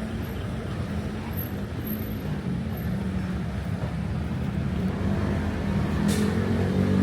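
Street traffic: motor vehicle engines running steadily at close range, getting louder toward the end, with a short hiss about six seconds in.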